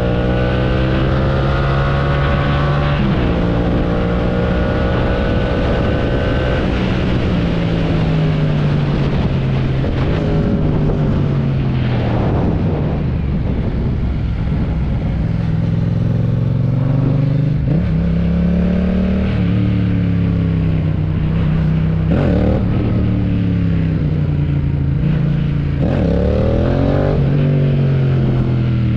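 AI-generated motorcycle engine sound, presented as a Yamaha MT-07, accelerating hard: the pitch climbs twice in the first seven seconds, as if through two upshifts. The revs then fall away and pick up again several times.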